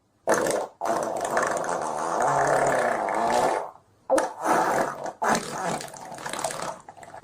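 Stomach growling and gurgling: several drawn-out, wavering rumbles cut together with abrupt breaks, the longest lasting about three seconds.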